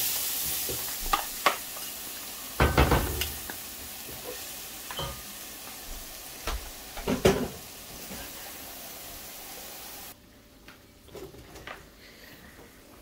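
Gulgula (sweet fritter) batter being spooned into hot oil, the oil sizzling steadily, with the spoon clinking and knocking against the bowl and pan several times. The sizzle cuts off suddenly about ten seconds in, leaving only a few faint knocks.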